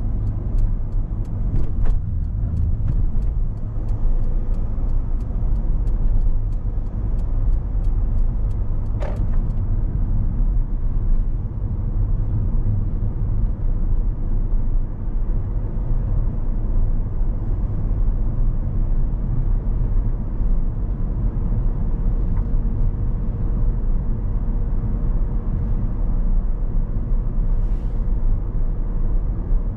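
Car being driven at a steady pace: a low, even rumble of engine and tyre noise heard from inside the cabin. Faint regular ticking runs through roughly the first third.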